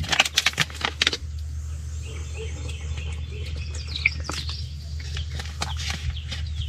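A steady low hum with a few sharp knocks and clatters in the first second, and faint short bird chirps above it.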